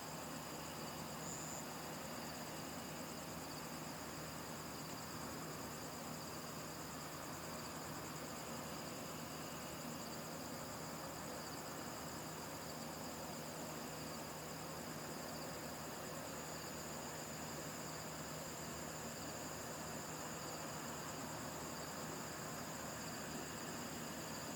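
Insects trilling steadily in high, fine-pulsed tones, over a faint steady low hum.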